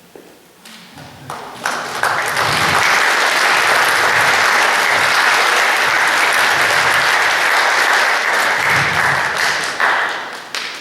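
Theatre audience applauding: the clapping builds about a second or two in, holds steady and dies away near the end.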